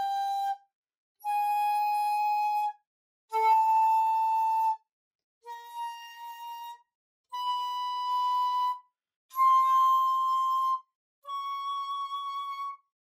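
Bamboo shakuhachi playing single held notes, each about a second and a half with a short breath gap between, stepping gradually upward in pitch. Each open note is paired with its meri half-tone, lowered a semitone by the meri technique. The meri note about six seconds in comes out noticeably softer.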